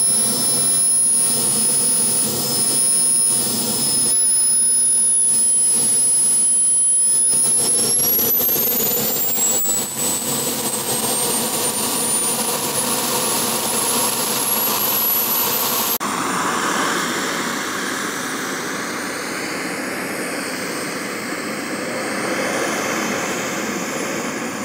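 Model jet turbine of the Hispano Aviation Bull RC jet starting up. A steady high whine begins rising in pitch about seven seconds in as the turbine spools up. Later the turbine runs as the jet taxis, its whine wavering.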